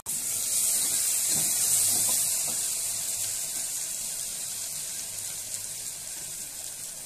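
Ginger-garlic paste sizzling in hot oil with onions and mutton in a pressure cooker, loudest just after it goes in and slowly dying down as it is stirred.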